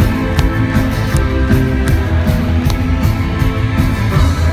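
Live rock band playing a loud instrumental passage: electric guitar over heavy bass, with drum hits about every three quarters of a second.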